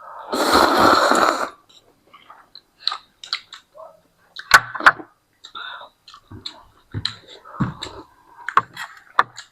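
People eating instant ramen noodles: a loud slurp about a second long right at the start, then quieter chewing with scattered short clicks and smacks.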